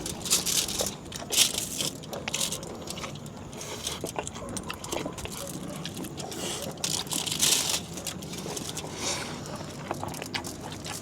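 A person chewing and crunching food close to the microphone, in irregular bursts during a meal of silog.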